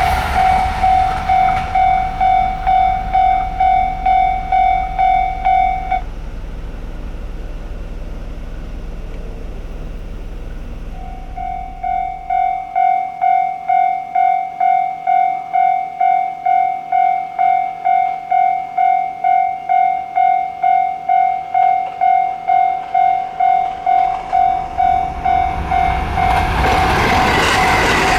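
Railway level-crossing warning bell ringing about twice a second, over the rumble of a passing train that fades away. The bell stops for about five seconds, then starts again, and near the end the noise of another approaching train swells up.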